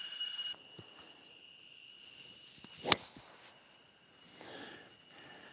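One sharp crack about three seconds in: a golf club striking the ball. Insects keep up a steady high-pitched drone, which drops sharply about half a second in and carries on faintly.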